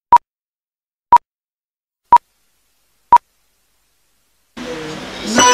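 Film-leader countdown beeps: four short, identical high beeps, one a second, with silence between. Near the end a hiss comes up and music begins.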